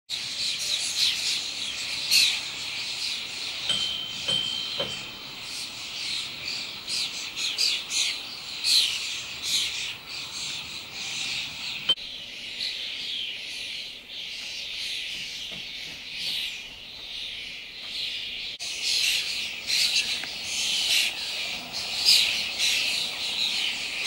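Many small birds chirping and singing at once: a dense chorus of quick, overlapping high calls.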